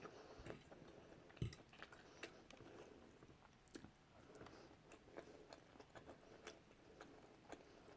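Faint chewing of a mouthful of food, with small wet mouth clicks and one soft knock about a second and a half in.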